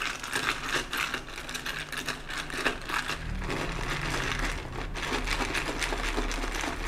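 Ice cubes clinking and rattling against a tall drinking glass as an iced coffee is stirred, a quick, uneven run of small clicks.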